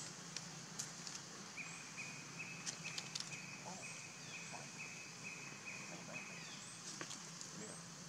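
Outdoor ambience: a steady high hiss and a low hum, with a short high note repeated about three times a second from about a second and a half in to about six seconds in, and scattered light clicks and rustles of dry leaves as the monkeys move about.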